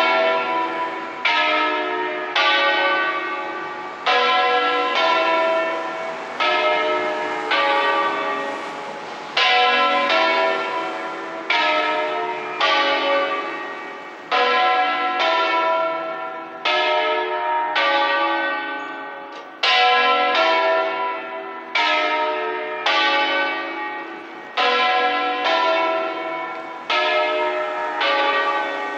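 Church tower bells ringing: strokes follow one another roughly once a second at slightly uneven spacing. Each stroke rings with several tones and fades into the next.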